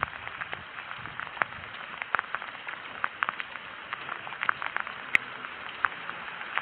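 Steady rain falling, with scattered sharp ticks.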